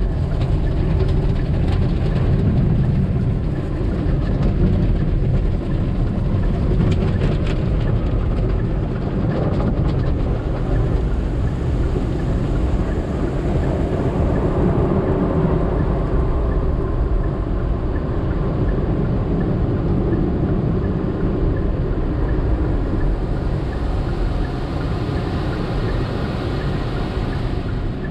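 Tunnel car wash equipment working over the car, heard from inside the cabin: a loud, steady wash noise heaviest in the low end, going on without a break, with a brighter hiss coming in over the last few seconds.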